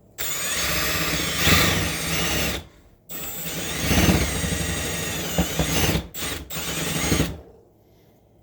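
Handheld power drill spinning a center countersink drill bit, cutting countersunk holes in two runs of a few seconds each, with a short stop between them. The motor note grows louder partway through each run as the bit bites in.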